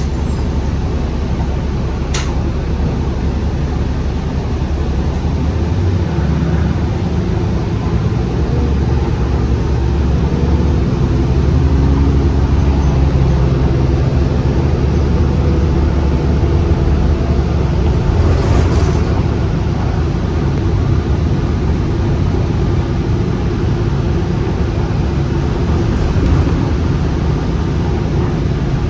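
Cabin ride noise of a Gillig Low Floor transit bus under way: a steady low drone of engine, drivetrain and road rumble, with a sharp click about two seconds in.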